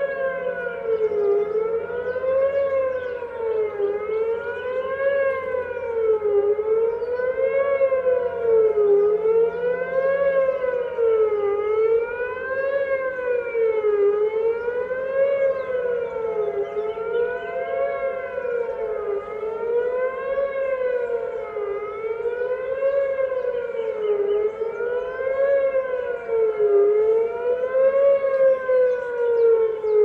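Outdoor civil-defense warning siren sounding its test signal, its pitch rising and falling evenly about once every two and a half seconds. Near the end the pitch begins a long slide downward.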